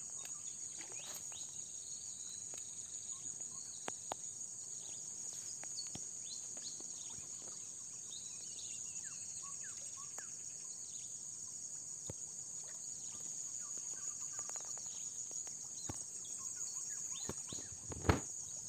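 Steady high-pitched insect chorus with scattered short bird chirps, and a brief thump near the end.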